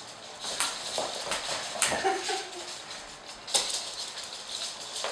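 Flat mop swishing across a laminate floor while Jack Russell terrier puppies scamper on it, their claws clicking and pattering irregularly. A brief puppy whine or yelp comes about two seconds in.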